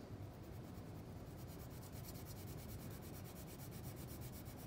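Wax crayon rubbing on paper, faint, in quick regular back-and-forth strokes as it is pressed hard to outline and shade in an area.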